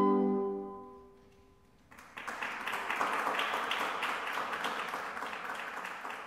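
A saxophone ensemble's final held chord is cut off and rings away within about a second. After a brief near-silence, an audience breaks into steady applause.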